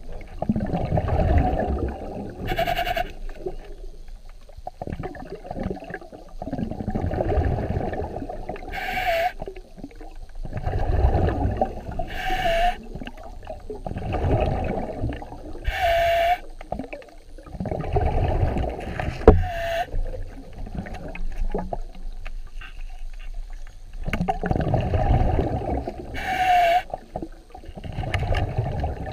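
Muffled underwater sound picked up by a submerged camera: a low rushing surge of water repeats about every three seconds, each followed by a short hiss with a brief dipping tone.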